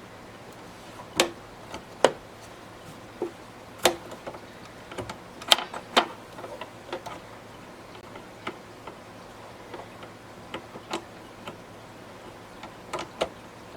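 Irregular plastic clicks and knocks as an embroidery hoop is handled and latched onto the Brother SE1900 embroidery machine's carriage. There are about a dozen, scattered, with the loudest a couple of seconds in and in a quick pair about halfway.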